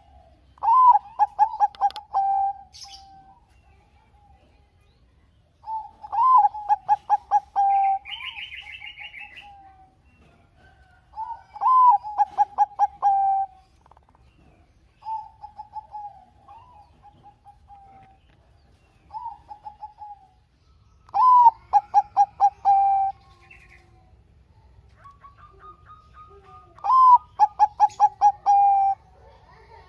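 Bangkok-type perkutut (zebra dove) singing its cooing song: about seven phrases, each a rising opening note followed by a fast run of short pulsed coos, repeating every few seconds, two of them fainter. A small bird chirps briefly in the background about eight seconds in.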